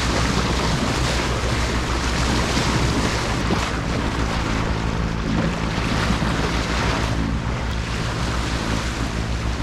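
A sailboat's inboard engine running steadily under way, with water rushing along the hull and wind buffeting the microphone.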